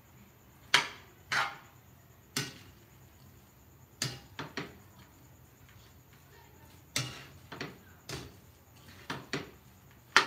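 Metal spoon clinking against the side of a metal pan while mixing biryani rice: about a dozen sharp, irregular knocks, some in quick pairs and threes.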